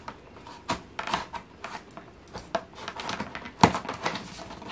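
Cardboard box and its packaging being handled and opened by hand: a run of short clicks, scrapes and rustles, with one sharp knock about three and a half seconds in.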